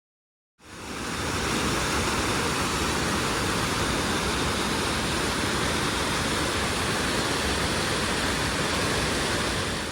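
Steady rushing of a mountain cascade, the outlet stream of a lake tumbling down rock. It comes in abruptly about half a second in and holds level throughout.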